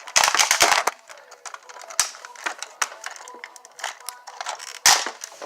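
Plastic toy parts clattering and clicking as a toy fire rescue truck is handled and reshaped into its flying form. A loud burst of rattling comes near the start, then scattered clicks, with two sharper snaps about two seconds in and near the end.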